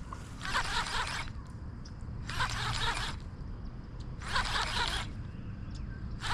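Fishing reel being cranked in short rasping bursts, each under a second and about two seconds apart, as a lure is retrieved with pauses.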